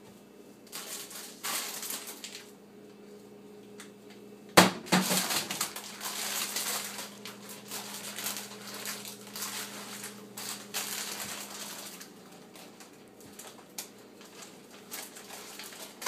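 Kitchen things handled by a toddler: a sharp bang about four and a half seconds in, then clattering and rattling of pots and dishes that thins out to scattered clicks near the end.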